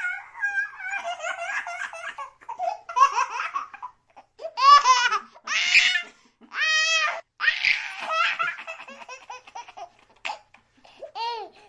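A baby laughing: rapid strings of giggles, then loud squealing belly laughs about halfway through, with short breaths in between.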